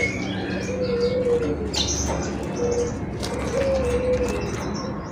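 Cinereous tit (gelatik batu) singing in quick, high chirping notes. Low, drawn-out cooing notes sound several times underneath, over a steady low hum.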